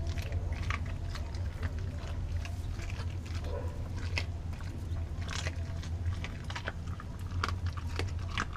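A Doberman chewing and biting into raw meat, with irregular wet bites and sharp jaw clicks over a steady low rumble.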